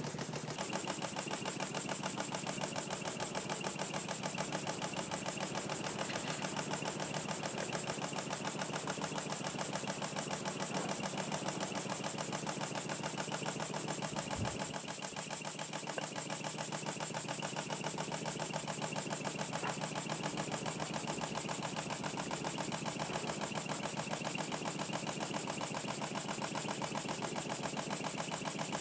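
Small single-acting model mill steam engine running slowly on compressed air, with a quick, even chuffing beat as it drives a belt-driven model oil pump jack. A steady high hiss runs underneath.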